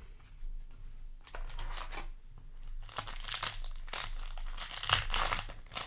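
Foil booster pack wrapper crinkling and crackling as it is handled, with a little tearing, busiest in the second half.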